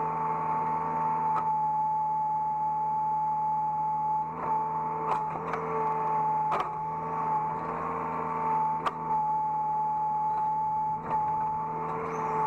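Hydraulic excavator running at work, heard from the operator's seat: a steady engine drone with a high whine over it, broken by a few sharp knocks and clunks in the middle and again near the end.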